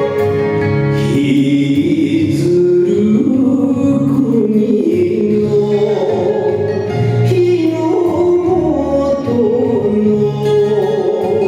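Japanese song accompanying a Nihon buyō dance: a singer's wavering, gliding vocal line over sustained instrumental accompaniment.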